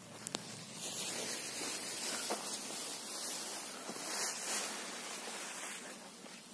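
Leaves and branches rustling as someone pushes through dense bush, a hissing rustle that swells and then fades toward the end, with a few light snaps.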